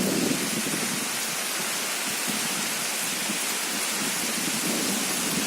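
Storm wind with light rain: a steady rushing hiss, with a gusty rumble at the very start.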